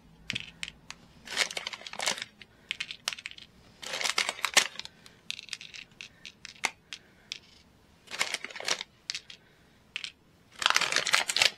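A small plastic bag of sequins rustling in the hand while loose sequins are picked out and dropped into the foam wells of a card, giving light ticks in short flurries, several times over, with the busiest flurry near the end.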